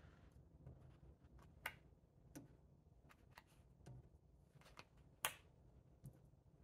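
Faint, scattered clicks and light taps from handling card stock and a sheet of foam adhesive squares, the loudest about five seconds in.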